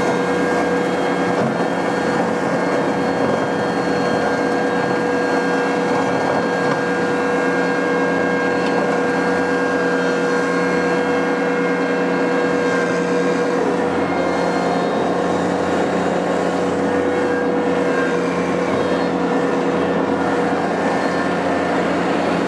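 Ventrac 4520 compact tractor's 24 hp three-cylinder Kubota engine running steadily under load, with the Tough Cut mower deck driven off it while the machine travels across a steep scrub bank. A constant hum whose pitch barely changes.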